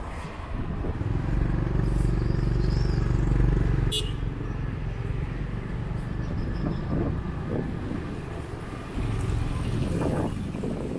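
Motorbike engine running with road noise while riding through a street, louder for the first few seconds, with a brief sharp click about four seconds in.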